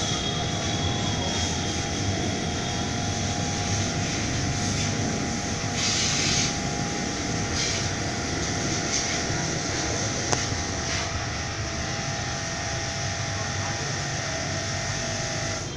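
Lakoni Daytona 100 high-pressure washer running steadily, its motor humming under the hiss of the water jet, with a brief louder hiss about six seconds in.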